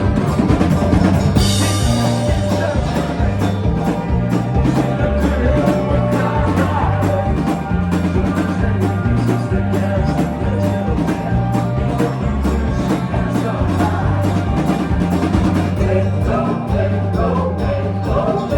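A live country-rock band playing an instrumental passage, the drum kit keeping a fast, steady beat over a stepping bass line, with a cymbal crash about a second and a half in.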